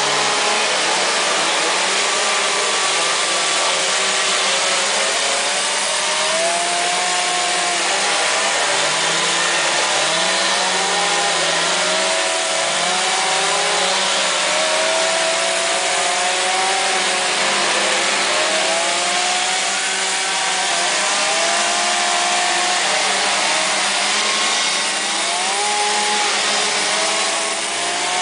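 Several two-stroke chainsaws running at once, their engines revving up and down in overlapping rising and falling whines as they cut into wood, over a steady loud din.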